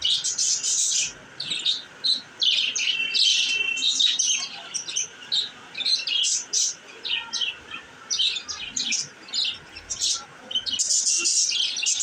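Several budgerigars chirping together: a dense, busy run of short, high chirps with brief gaps between them.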